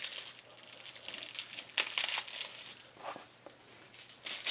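Bubble wrap crinkling and rustling as it is pulled off small nail polish bottles. The sound comes in irregular crackles, loudest about two seconds in, with quieter crinkles after that.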